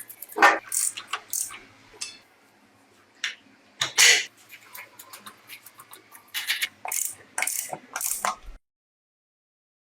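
A series of sharp metallic clicks, clinks and short rattles, like small metal parts and hand tools being handled, which stops abruptly with a cut to dead silence about a second before the end.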